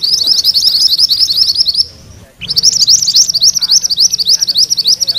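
Caged mantenan kuning songbird singing a fast rolling run of high chirps, several notes a second. The song breaks off for a moment about two seconds in and then starts again.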